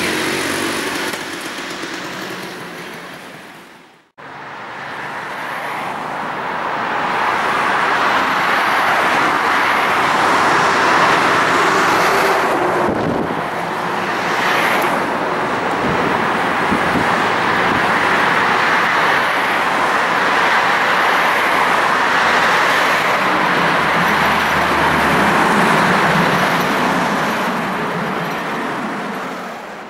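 Road traffic passing on a busy avenue. The sound breaks off about four seconds in, then a steady rush of traffic builds as an electric tram approaches along a grass-covered track and passes close by near the end.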